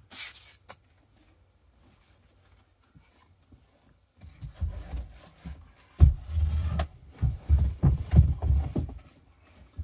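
Handling noise from working a battery and its wires into place: a short rustle at the start, then after a quiet spell a run of low thumps and rubbing, the loudest thump about six seconds in.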